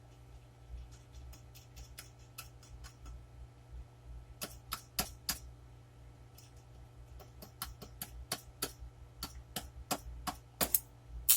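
Homemade microwave-oven-transformer arc welder humming steadily while the electrode is scratched and tapped on the work to strike an arc, giving irregular sharp crackles and snaps that get louder and more frequent toward the end.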